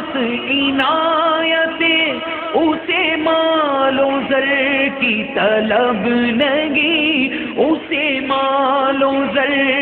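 A man's voice reciting a naat, an Urdu devotional poem in praise of the Prophet, in song: long held notes with vibrato and ornamented slides between pitches, with no drum beat.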